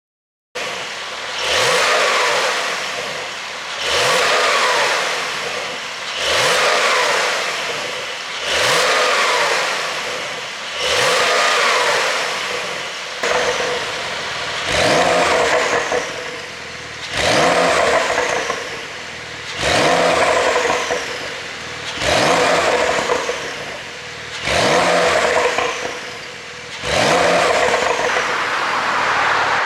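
Porsche 911 992 Carrera 4S twin-turbo flat-six revved over and over, about a dozen throttle blips roughly two seconds apart. Each rev rises sharply and then falls back with crackling on the overrun from a pop-and-bang ECU tune.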